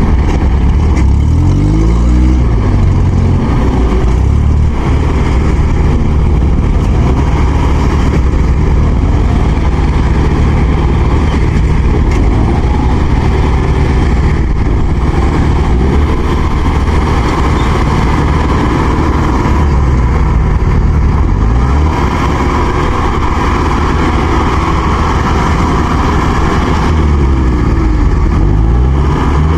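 Heavy farm-machine diesel engine running steadily and loudly, its note shifting briefly near the start and again near the end.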